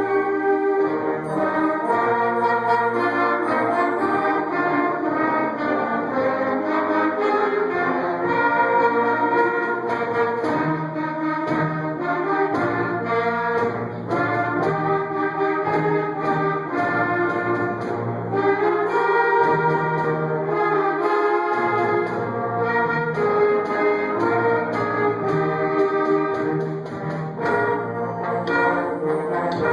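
A march played by brass instruments, trumpets and trombones with a steady beat, running without a break.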